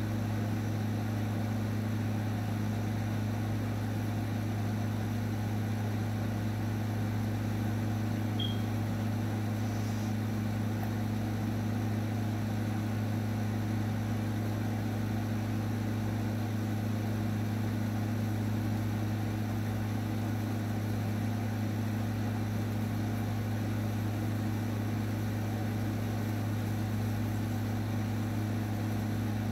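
A steady low electric motor hum that holds unchanged throughout, with a brief faint high chirp about eight seconds in.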